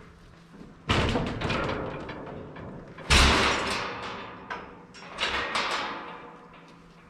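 Metal panels or gates of a livestock handling system clanging and rattling three times as they are moved and set in place, the middle clang the loudest, each ringing out over a second or so.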